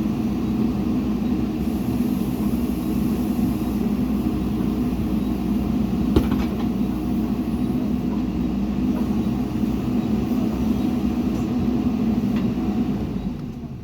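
Heavy diesel engine running steadily under a low drone, with one sharp knock about six seconds in; the sound drops away near the end.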